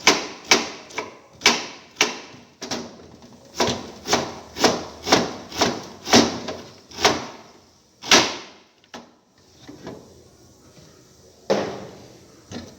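Kitchen knife chopping onion on a cutting board: sharp, even knocks about two a second, ending with a loud knock about eight seconds in, followed by a quieter stretch with one more knock.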